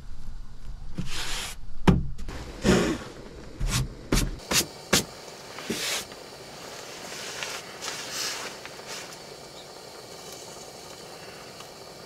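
Gear being handled in a pickup truck bed: seven or so sharp knocks and clicks with rustling over the first five seconds. After that, a steady faint hiss.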